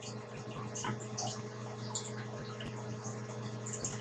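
Aquarium filter running: a low steady hum with faint trickling water and small scattered drips.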